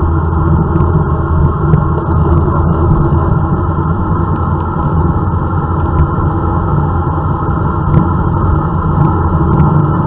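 Wind rushing over a bike-mounted camera's microphone at high speed on a road-bike descent: a loud, steady low rumble with a few faint clicks.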